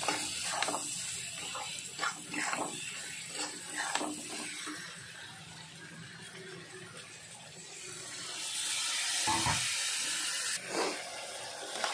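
Steel spatula stirring and scraping potatoes, pointed gourd and spice paste around a hot iron kadai while the masala is sautéed, with frying sizzle underneath. The hiss grows louder for a couple of seconds past the middle, with a dull knock in it.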